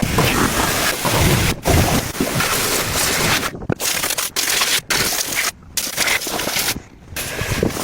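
Harsh scraping and rubbing noise in short stretches, broken by several sudden cuts.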